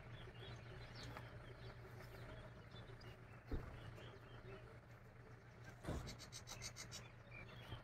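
Faint outdoor ambience with scattered distant bird chirps, and two soft knocks partway through.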